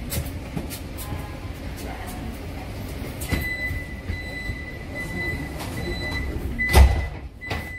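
Metro car standing at a platform with a steady low rumble. A high electronic warning tone starts about three seconds in and runs on as the doors close. A heavy thud near the end is the doors shutting, followed by a lighter knock.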